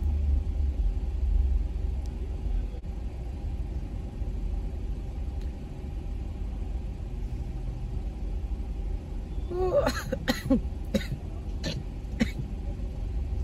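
A steady low rumble, then about ten seconds in a quick run of five or six short, sharp coughing sounds from a person getting a nasal swab.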